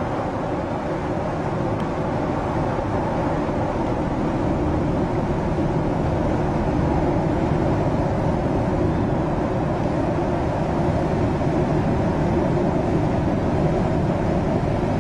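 Large car ferry's engines and the water churned by its propulsion running steadily, growing gradually louder, with wind buffeting the microphone.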